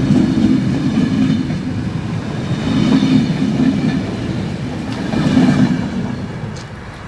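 Passenger coaches rolling past on the rails at close range, their wheels rumbling and clacking, swelling louder about every two and a half seconds. The sound fades as the last coach passes near the end.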